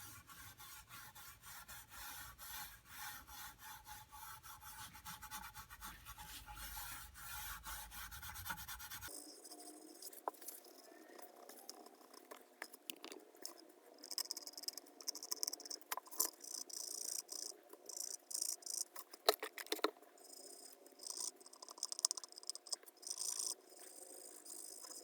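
Faint scraping and rubbing from hand-cleaning a small socket set, many short irregular scratchy strokes. The sound changes character abruptly about nine seconds in.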